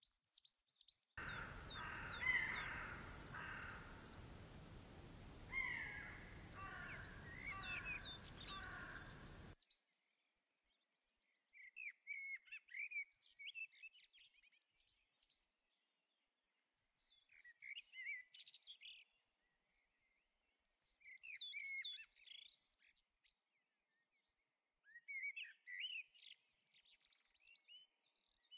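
Woodland songbirds singing: quick high, sliding notes in phrases of two to three seconds with short pauses between. A steady hiss underlies the song for the first ten seconds or so.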